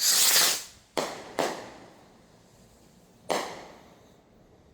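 Consumer firework rockets going off: a loud hissing whoosh, then two sharp cracks a moment apart, and another shorter hissing burst near the end.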